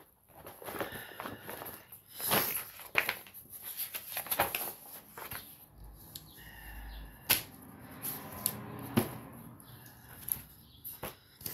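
Rustling and crinkling of a stiff cross-stitch canvas and a plastic mesh pouch being handled and unfolded on a table, with scattered sharper clicks and taps.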